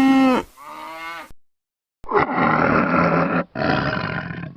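A cow's moo ends within the first half-second. After about a second of silence, two long, rough, noisy animal calls follow with a short break between them.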